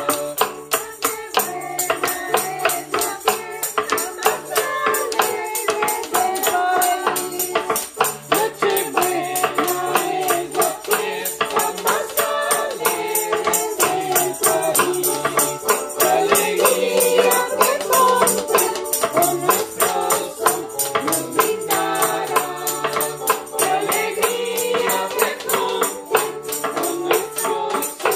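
Small choir of mixed voices singing a Christmas song in unison, accompanied by an electronic keyboard and hand percussion that keeps a quick, steady beat.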